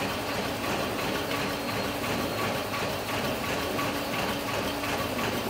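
Chocolate single-twist wrapping machine running: a steady, rapid, evenly repeating mechanical clatter.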